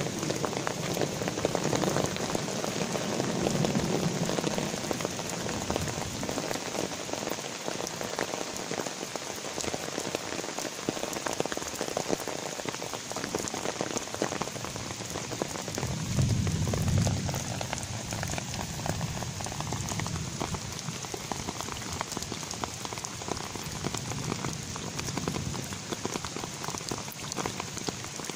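Light rain falling on wet pavement and puddles: a steady patter of many small drops. A low rumble swells briefly a little past halfway through.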